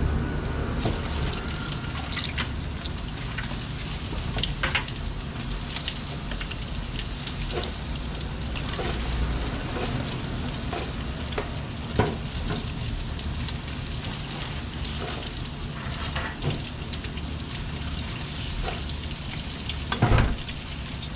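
Flour-coated pieces of dolphin fish (mahi-mahi) deep-frying in a large wok of hot oil: a steady sizzle with scattered crackles and pops. A sharp knock comes about halfway through and a louder clatter near the end, as the wooden spatula goes into the wok.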